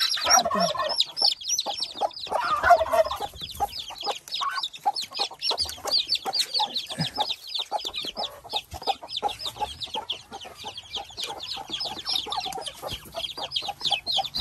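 Four-day-old chicks peeping rapidly and without pause, several high peeps a second. In the first few seconds a mother hen clucks and there is scuffling as hands reach in among the birds.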